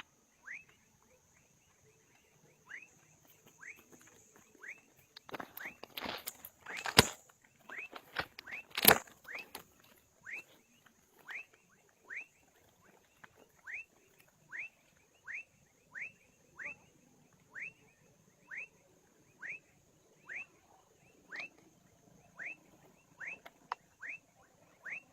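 A frog calling with short, high notes that each drop quickly in pitch, repeated steadily about once every second, over a steady high insect-like hiss. Between about five and nine seconds in, a few loud knocks and rustles stand out.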